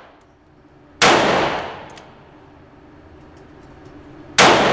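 Two shots from a Ruger .38 revolver, about three and a half seconds apart. Each is a sharp crack with a long echo in the concrete booth.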